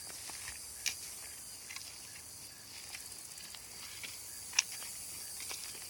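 Steady high-pitched outdoor hiss, like insects, with a few scattered sharp light clicks, the loudest about four and a half seconds in.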